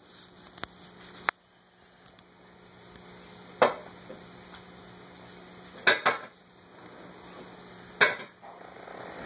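Five sharp household clicks and knocks, spread a second or two apart, with a quick pair about six seconds in, over a faint steady hum.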